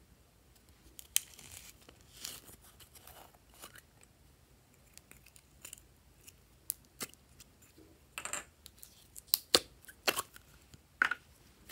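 A plastic slime container being opened and handled, with scattered clicks and crinkles as the lid is worked off. Several sharp plastic clacks come near the end, as the tub is turned over.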